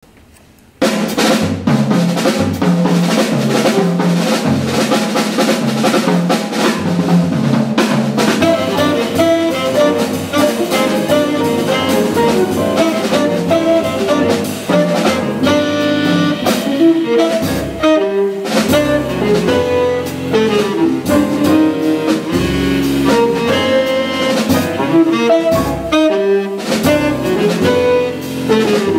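Live jazz quintet playing a hard bop tune: saxophone over piano, guitar, double bass and drum kit. The music starts suddenly about a second in.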